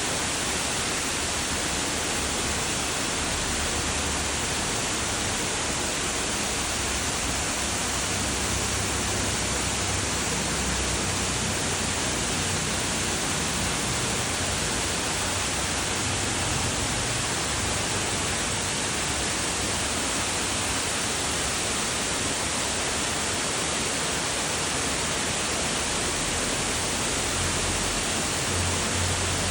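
Fast-flowing mountain river rushing in a steady, unbroken wash of water noise.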